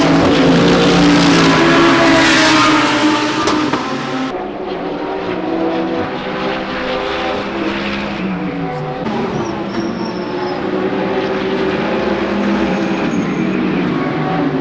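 Several racing car engines running on the circuit, their pitches overlapping and sliding as the cars pass. About four seconds in, the sound turns abruptly duller and a little quieter.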